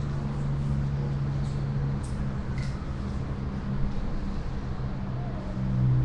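Steady low hum with a few faint, brief ticks over it.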